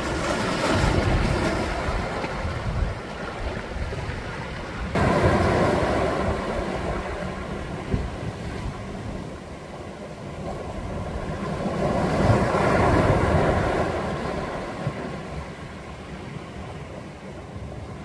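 Sea waves breaking against shore rocks and washing back, a rushing surf that swells and ebbs. One surge at the start, another coming in abruptly about five seconds in, and a third swelling and fading later on.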